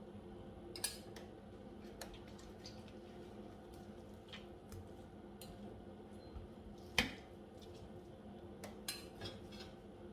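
Cutlery clicking and clinking against a dish, a few scattered light taps with sharper knocks about a second in and about seven seconds in, over a faint steady hum.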